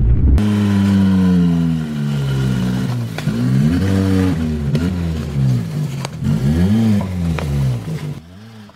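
Suzuki Swift's engine revving hard, its pitch rising and falling several times as the driver works the throttle, then dropping away sharply near the end.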